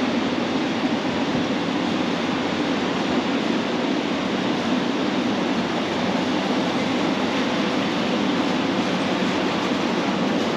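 Steady, even background noise of a large warehouse store, with no distinct events.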